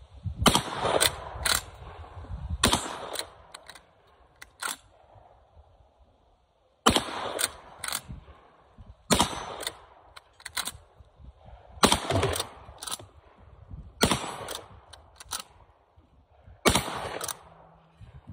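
Cimarron 1887 lever-action 12-gauge shotgun fired seven times, a couple of seconds apart, with sharp metallic clacks of the lever being worked between shots. It feeds and cycles through the whole load without a hitch, with the magazine holding an extra shell on a cut-down, extra-strength spring.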